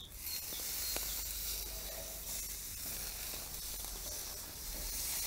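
Oiled zucchini slices sizzling on a hot gas-grill grate, a steady high hiss, with a light tap about a second in.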